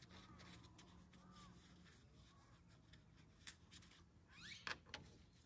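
Near silence: faint outdoor background with a few light clicks and scrapes from handling, and a couple of faint bird chirps, one about four seconds in.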